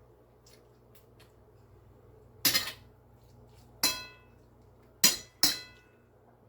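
Four sharp clinks of a utensil knocking against a dish, the second and fourth ringing briefly.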